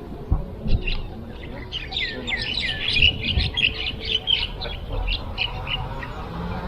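Small birds chirping busily: many short overlapping calls, a few of them swooping downward in pitch, thinning out near the end. A few low thumps sound under the birds near the start and about three seconds in.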